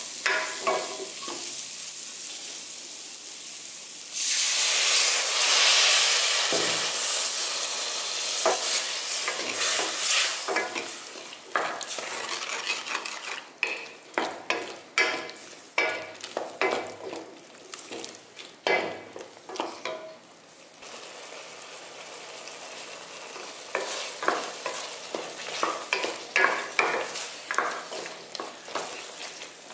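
Spiced vegetables sizzling in a steel pot while being stirred with a spatula. About four seconds in a loud hissing surge as liquid is poured onto the hot vegetables, then repeated scraping strokes of the spatula through the wet gravy.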